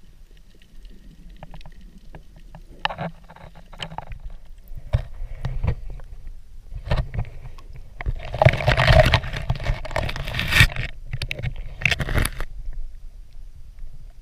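Underwater noise picked up through a GoPro's waterproof housing: muffled water movement with scattered knocks and scrapes, then a louder rush of noise about eight seconds in lasting two to three seconds, and a shorter one near twelve seconds.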